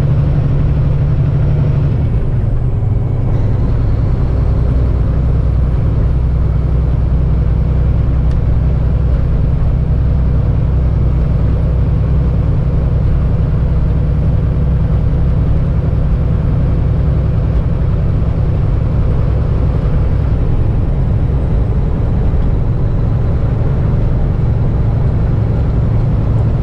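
Kenworth heavy truck's diesel engine running steadily at road speed, heard from inside the cab with road noise, pulling a loaded lowboy trailer. The engine note drops about two seconds in and shifts again around twenty seconds.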